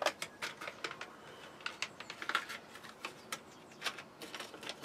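Hands rummaging among paper seed packets on a potting bench: irregular light rustles and clicks.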